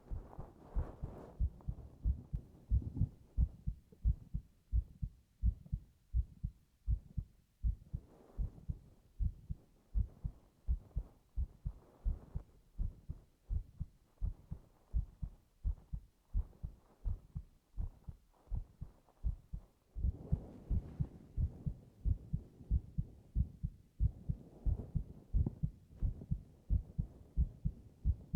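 A person's heartbeat heard close up, as with an ear against the chest: a steady, even rhythm of low thumps.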